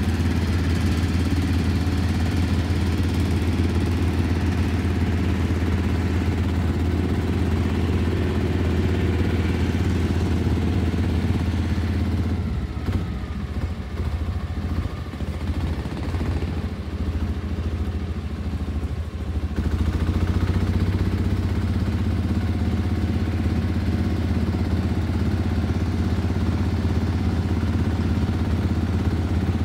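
A small boat's engine runs steadily with a strong low hum as the boat pushes through thick water hyacinth, the heavy load making it hard to move forward. About halfway through, the engine note drops and grows rougher for several seconds, then comes back up to its steady run.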